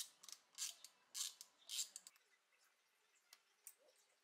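Ratchet wrench clicking in four quick strokes about half a second apart as it turns the bolt of a hose clamp on a silicone intake coupler, stopping about two seconds in; a couple of faint clicks follow.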